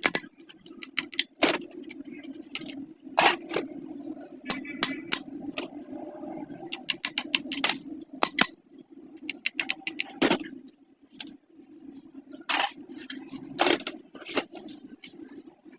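Irregular metallic clicks, taps and clinks of tools and parts being handled while a sewing machine is worked on by hand, over a steady low hum.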